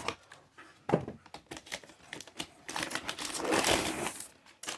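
Vacuum cleaner parts being handled in their packaging: a few sharp clicks and knocks about a second in, then a couple of seconds of packaging rustling and crinkling.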